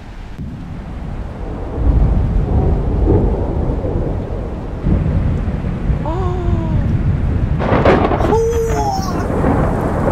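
Thunder over steady rain: a deep rumble swells about two seconds in and rolls on, with a sharper crack near eight seconds.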